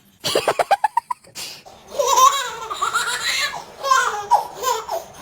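A baby laughing: a quick run of short laugh pulses in the first second, then longer, high-pitched squealing laughs.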